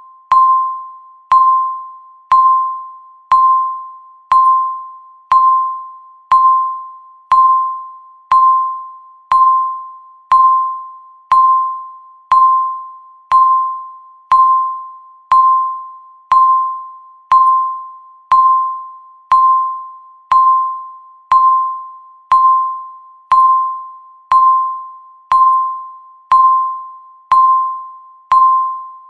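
Countdown timer beep sounding once a second: a single clear high tone that starts sharply and fades away before the next, repeating evenly.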